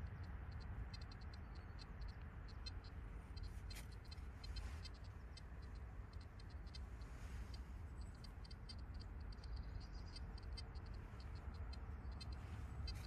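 Fingers scraping and poking through loose soil and dry leaves, with faint irregular scratches and ticks over a low steady rumble.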